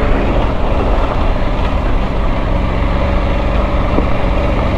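Triumph Tiger 900 Rally Pro's three-cylinder engine running steadily as the motorcycle starts up a steep, loose dirt climb.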